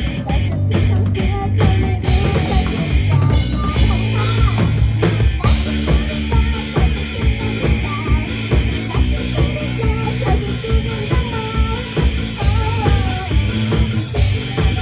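Live rock band playing with a drum kit and electric guitars, a wavering lead melody over a steady beat.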